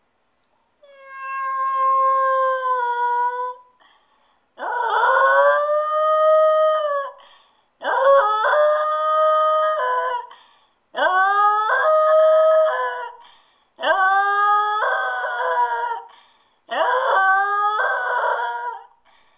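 A small white terrier-type dog howling: six long howls of two to three seconds each, each sliding up quickly at the start and then held, with short breaks for breath between them.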